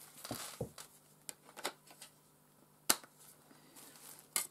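A metal steelbook Blu-ray case being handled: soft rustling and a scatter of small clicks and taps, with one sharp click about three seconds in.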